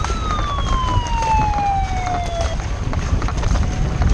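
A siren wail sliding down in pitch and cutting off about two and a half seconds in, sounding the start of the race right after the countdown. Wind rumbles on the microphone and paddles splash in the water underneath.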